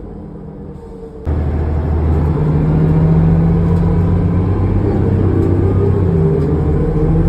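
New Flyer D40LF diesel transit bus drivetrain heard from inside the bus. It suddenly gets much louder about a second in, then runs with a heavy low drone and whining tones that slide up and down. This is the 'weird howling' drivetrain sound of this bus.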